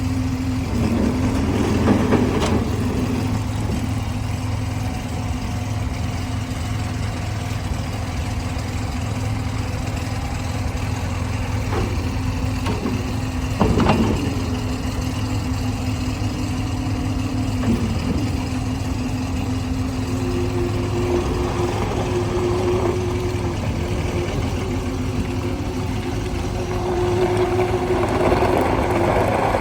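John Deere 332G skid steer loader's diesel engine running steadily at idle. A few short knocks sound over it, the loudest about halfway through, and the sound grows fuller and louder near the end.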